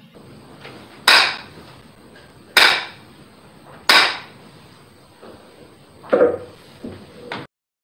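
Three sharp claps of a jukbi, a Korean Buddhist split-bamboo clapper, struck against the palm about a second and a half apart, followed by two softer wooden knocks near the end. Three jukbi strikes are the customary signal that opens a service or meditation.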